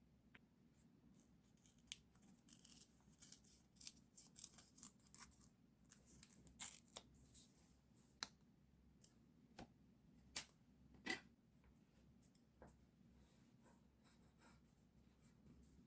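Faint, scattered crisp snips and short rustles of scissors and paper or sticker sheets being handled for diary decorating, most of them between about two and eleven seconds in.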